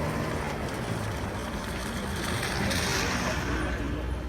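Street traffic: a vehicle engine's low rumble, with a brief rush of hiss about two to three seconds in.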